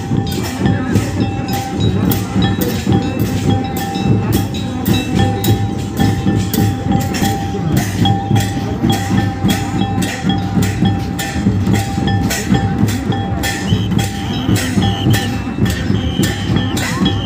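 Folk dance drumming: hand drums beating a steady fast rhythm, about three strokes a second, with a held high note running over it.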